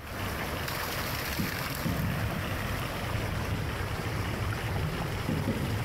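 Water gushing and splashing out of a steel irrigation water wheel into a canal, a steady rushing noise, with wind buffeting the microphone.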